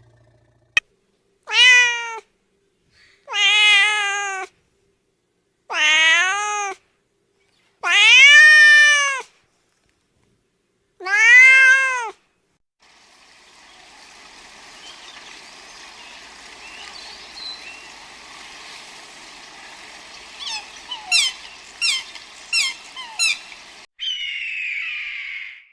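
A domestic cat meowing five times, long drawn-out meows that rise and fall in pitch, a second or two apart. After that comes a steady hiss with a quick run of short falling chirps, and a brief harsher call near the end.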